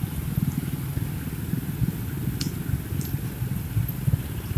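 Close motorcycle traffic: a steady low rumble of small scooter engines running at slow speed all around, with two faint ticks about halfway through.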